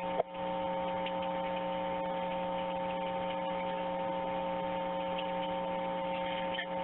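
Steady electrical hum on a telephone line: several held tones at an even level, with a faint hiss, starting just after a second in and cutting off at the end.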